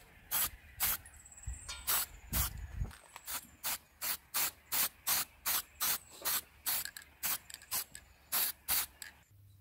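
Aerosol spray-paint can sprayed in many short, quick bursts, about two a second, each a brief hiss. The bursts stop shortly before the end.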